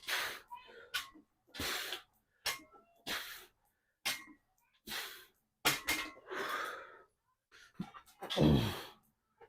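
A person breathing hard in sharp, noisy breaths about once a second, recovering after a heavy set of leg exercise, with a louder, voiced exhale near the end.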